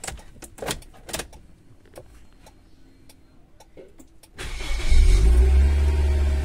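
Inside a Suzuki Aerio's cabin: a scatter of light clicks, then about four seconds in a loud, steady low motor hum starts up and keeps running.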